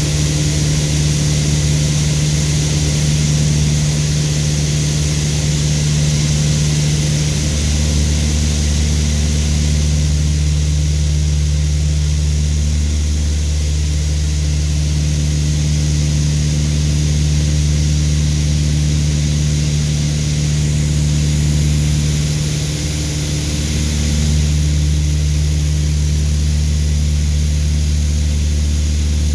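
A Piper Aztec's twin six-cylinder piston engines and propellers droning steadily in cruise, heard from inside the cabin. The low engine tones shift slightly every few seconds over a constant rush of air.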